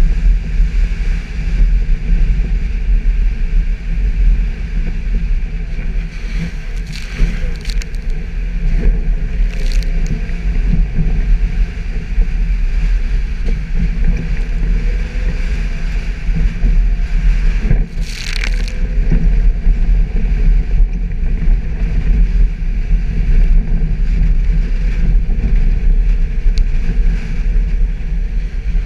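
Suzuki Jimny driving off-road, its engine and drivetrain running with a steady low rumble. A few brief knocks come through, the loudest about eighteen seconds in.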